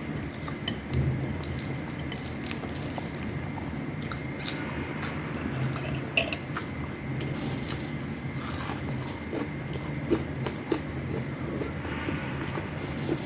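Close-up chewing and crunching of fried dried fish, with many short crisp clicks of biting, over a steady low background hum.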